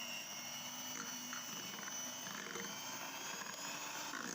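Electric hand mixer running steadily at low speed, its motor whining, while it beats cake batter.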